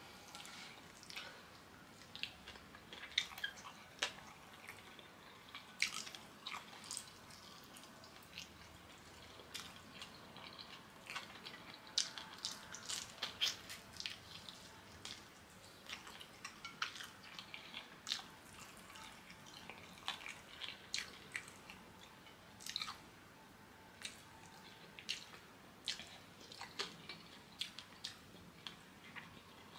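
A person eating Ghanaian kenkey close to the microphone: quiet chewing with scattered small mouth clicks at an irregular pace.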